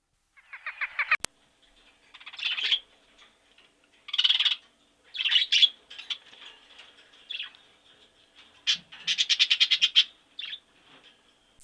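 A small bird chirping in short separate calls, with a sharp click just over a second in and a fast trill of rapid repeated notes near the end.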